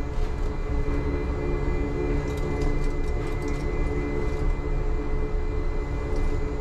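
Uijeongbu Light Rail's rubber-tyred Siemens VAL 208 automated train running along its elevated guideway, heard from inside the car: a steady low rumble with a constant whine from the drive, and a few faint ticks around the middle.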